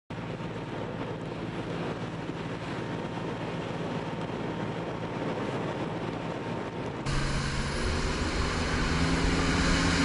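Steady engine drone with wind noise. About seven seconds in it cuts abruptly to a louder, deeper engine sound.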